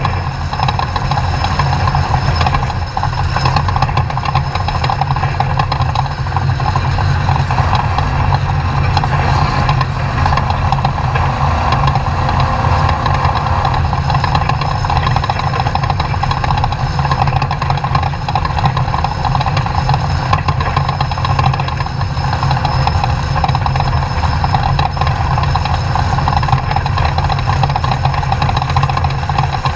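Class 2000 off-road race truck's engine running loud and continuous at a steady, unchanging pitch, mixed with a constant noisy roar.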